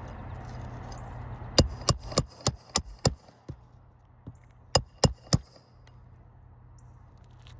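Hammer driving a roofing nail into a shingle: a run of six quick strikes, about three a second, then after a short pause three more.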